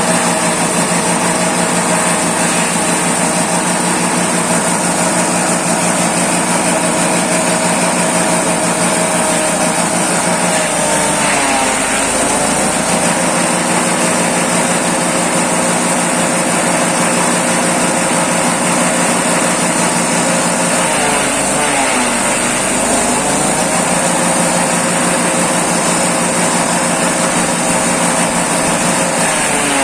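Small engine of a grass chopping machine running steadily at high speed, its pitch sagging twice, about eleven and twenty-one seconds in, and climbing back, as when the engine is briefly loaded.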